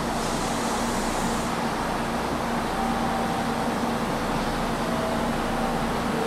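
Steady hum and whir of a limited express electric train standing at the platform, its air-conditioning and auxiliary equipment running, with a low steady tone under it.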